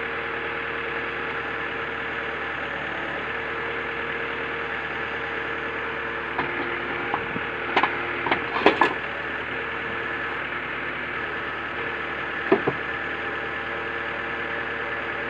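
Iveco truck-mounted crane's engine and hydraulics running steadily while the scrap grapple works over a wrecked car. About halfway through there is a cluster of sharp clanks and cracks, and one more near the end, as the grapple bites into the scrap and what looks like a wooden pallet.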